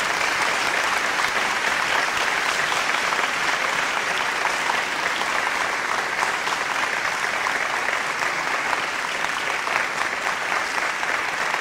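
A large audience applauding, a dense, steady clapping that holds at one level throughout.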